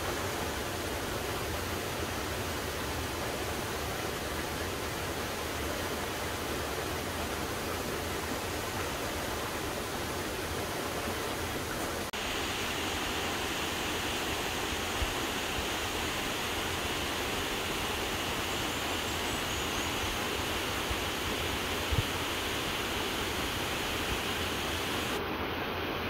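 Steady rushing of a small waterfall cascading into a natural swimming pool, turning brighter and hissier about halfway through, with a short faint knock or two later on.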